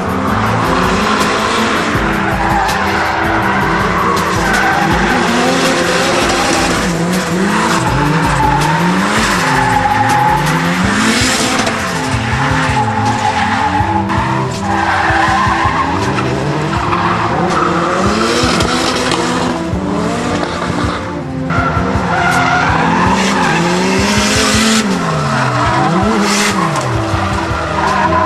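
Drift cars sliding through corners, engines revving up and down over and over with long, wavering tyre squeal.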